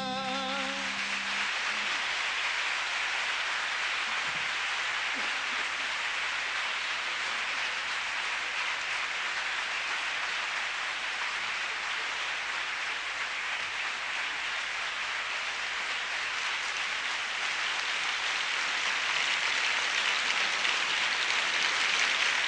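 Concert audience applauding, a dense steady clapping that grows a little louder near the end. The last sustained notes of the song die away in the first second or so.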